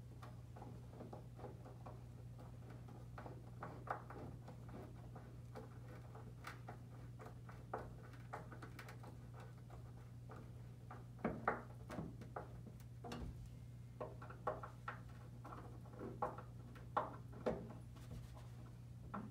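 Faint clicks and scrapes of a hand screwdriver turning small brass screws to fix a twist door bell to a wooden door, over a steady low hum. The clicks get sharper and more frequent in the second half.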